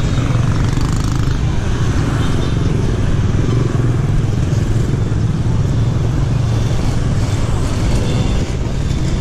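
Motor scooter engines running in street traffic, a steady low engine hum with road noise.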